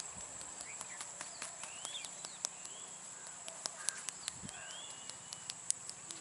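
Scattered sharp clicks and slaps of hands working on the skin during a head-and-neck massage, irregular and several a second at times. Short rising bird chirps and a steady high whine sit behind them.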